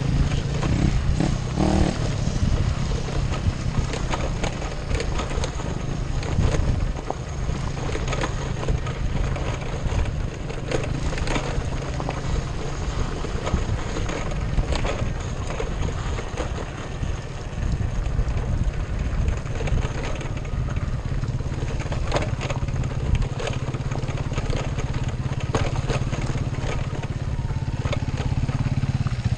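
Off-road motorcycle being ridden along a dirt trail: the engine runs steadily under continuous wind buffeting, with scattered knocks and rattles from the ride over rough ground.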